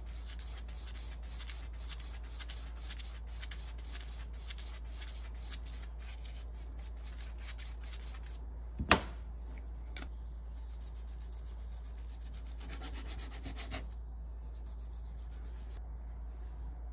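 A silicone pastry brush rubbing oil over the seaweed of a kimbap roll in quick repeated strokes, over a steady low hum. The strokes stop with one sharp clack about nine seconds in and a lighter click a second later. A few seconds after that comes a short rustling crunch as a knife slices the roll.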